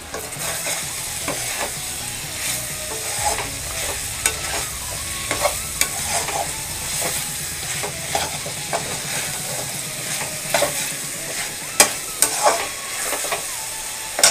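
Chicken pieces and thick masala frying in a metal kadhai with a steady sizzle, the water cooked off and the masala being dry-fried (bhuna) on a low flame. A metal slotted spoon stirs them, scraping and clicking against the pan again and again, with the sharpest clicks near the end.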